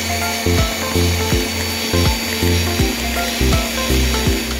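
Electric mixer running steadily as it whips a thick white glaze, its motor a continuous whine and hiss under background music with a steady beat.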